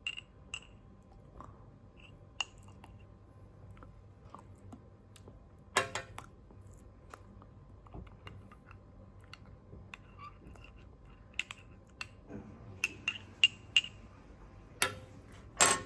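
Metal teaspoon stirring coffee in a porcelain mug, clinking against the sides with short, high ringing pings. A quicker run of clinks comes late on, with a louder knock about six seconds in and another at the end.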